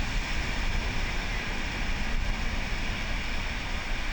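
Wind buffeting the microphone in a steady, uneven low rush, with surf washing on the beach behind it.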